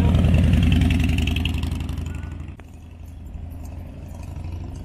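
Cruiser motorcycle with a V-twin engine passing close by, its engine loud and pulsing, fading as it rides away over the first two seconds. About two and a half seconds in, the sound gives way abruptly to a much quieter outdoor background with a few faint bird chirps.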